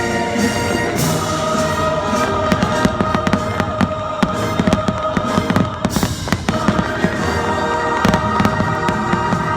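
Fireworks bursting and crackling in quick succession over the show's orchestral music, which is playing from loudspeakers. The pops come thickest from a couple of seconds in, with a brief lull about two-thirds of the way through.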